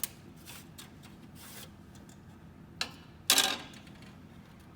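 Circuit boards being pulled out of their slots in an electronics card rack: a few sharp clicks, then a short, louder scraping clatter a little past the three-second mark.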